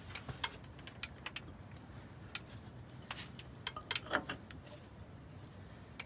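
Hand tools being handled at a bus's rear wheel hub: scattered light clicks and taps as a socket is picked up and set on the axle nut.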